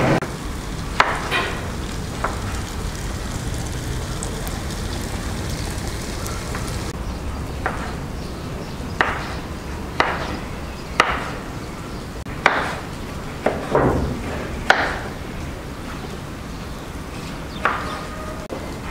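Kitchen knife slicing carrots into strips on a wooden cutting board: separate sharp knocks of the blade meeting the board at an uneven pace, often a second or more apart, over a steady low background noise.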